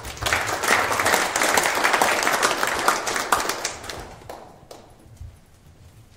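Audience applauding: a dense clapping that starts at once, holds for about four seconds, then dies away to a few scattered claps.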